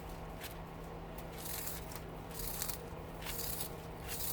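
Copper winding wire being pulled off an old electric motor: a run of short scraping, crackling strokes as the brittle wire and insulation break away. A steady low hum runs underneath.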